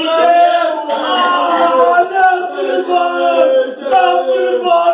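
A group of men singing together without accompaniment, in long held notes.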